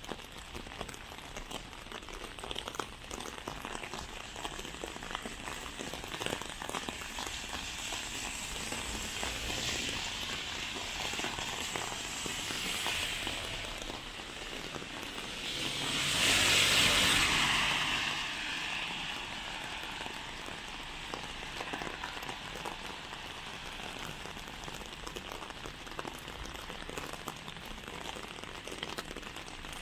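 Rain falling on a city street: a steady hiss with the patter of drops. About halfway through, a passing vehicle's tyres on the wet road swell into a louder hiss and fade over a couple of seconds.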